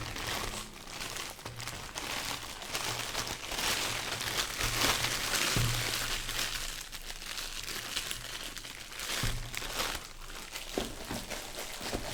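Packaging crinkling and rustling as it is handled, a continuous run of small crackles that is loudest around the middle.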